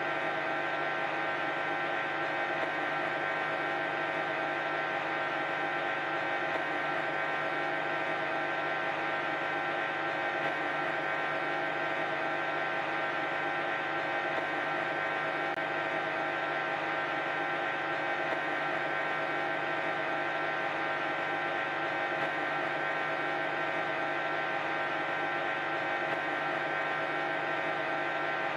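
Hoover 10 kg washing machine on its 1400 rpm spin cycle, running at a steady top speed: an even, unchanging whir of drum and motor with several held tones.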